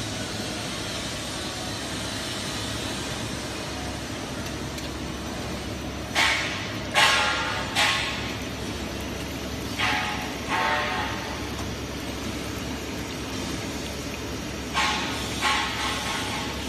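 PVC profile extrusion line running with a steady machine hum. From about six seconds in come several loud sudden knocks, each with a short ring, in small groups of two or three.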